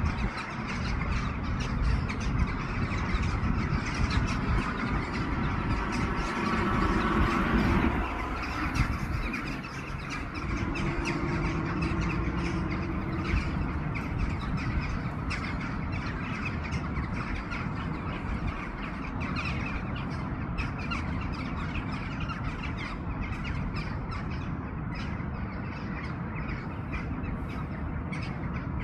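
Birds calling over a steady low rumble, busiest in the first several seconds.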